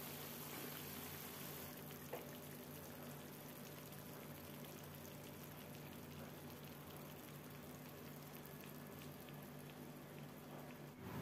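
Chicken masala gravy simmering in a pan: faint bubbling with small scattered pops over a steady low hum, with a single click about two seconds in.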